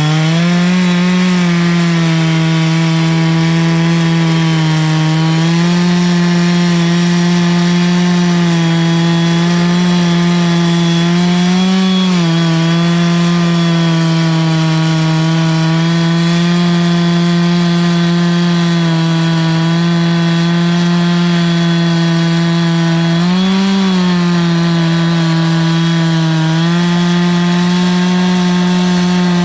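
Two-stroke chainsaw running at high revs under load, ripping a log lengthwise into a 1-inch board in an Alaskan chainsaw mill. The engine note holds steady and rises briefly three times as the load eases.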